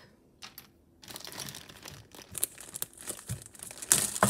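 Clear plastic bag crinkling as it is picked up and handled, starting about a second in and getting louder near the end.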